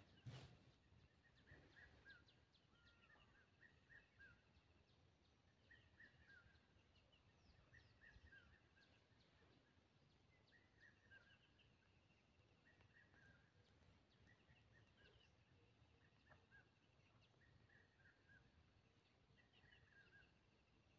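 Faint birdsong from bushland: small birds giving short chirps and brief trills, a call every second or two. A single sharp knock at the very start.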